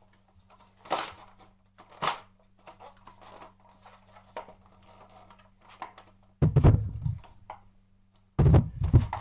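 Plastic layers of a giant He Shu 3x3 puzzle cube being turned by hand, with sharp clacks about one and two seconds in and lighter ticks after. In the last third come loud low thumps and rumbling as the big cube is pushed and handled.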